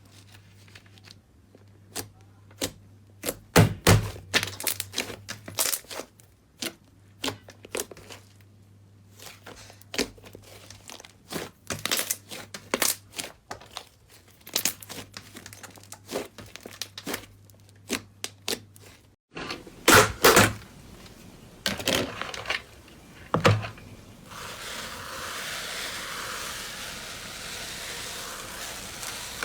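Slime being poked, squeezed and stretched by hand: irregular sticky clicks, crackles and pops. There is a short break about two-thirds of the way through, then a steady hiss joins the pops near the end.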